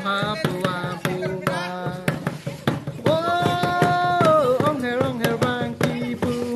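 Music for the Karbi Domahi dance: a sung melody over even, fast hand-drum beats, with one long held note about three seconds in.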